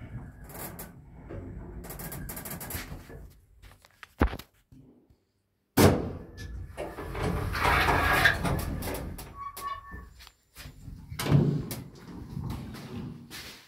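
Elszyk passenger lift arriving: a click as it stops, then its cab doors opening with a noisy rattle lasting a few seconds, a short tone, and the heavy steel swing landing door pushed open with a thud about eleven seconds in.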